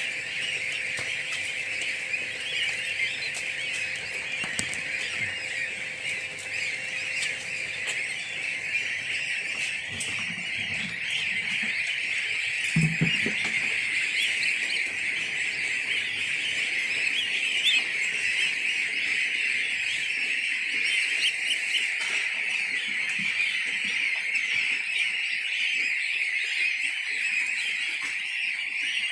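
Hundreds of 18-day-old goslings peeping together in a steady, high-pitched chorus. There is a brief low thump about 13 seconds in.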